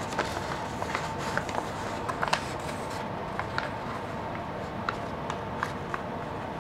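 A sheet of printer paper rustling and crackling in sporadic small ticks as it is folded and creased flat by hand, over a steady faint hiss.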